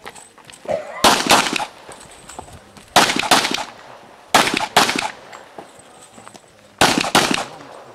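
Pistol shots fired in quick pairs, the two shots of each pair about a third of a second apart. There are four pairs, spaced about one and a half to two seconds apart, and one more shot at the very end.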